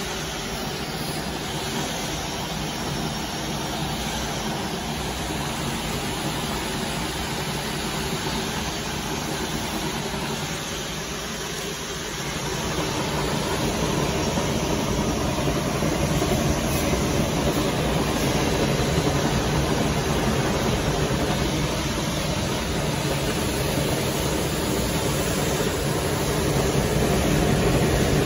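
Conveyor tunnel oven for mug dye-sublimation, running with a steady mechanical hum and whir. It gets louder about twelve seconds in.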